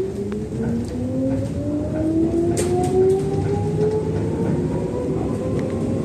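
Electric commuter train's traction motors whining, rising steadily in pitch as the train accelerates away from a station, over the low rumble of wheels on rail.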